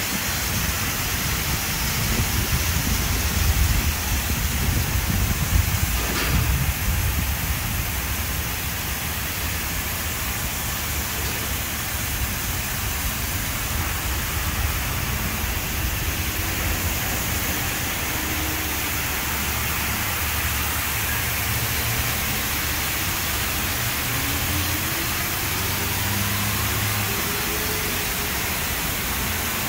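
Ryko Pulse touch-free car wash gantry spraying presoak and foam over a car: a steady, rain-like hiss of spray on the car with a low rumble beneath, a little louder in the first several seconds.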